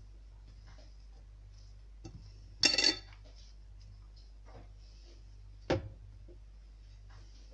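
Dishes and utensils being handled on a kitchen worktop: a short loud clatter about two and a half seconds in and one sharp knock near six seconds, over a faint steady low hum.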